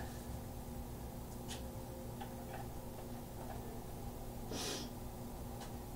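Steady low hum with a few faint clicks, and a brief rustle about two-thirds of the way through.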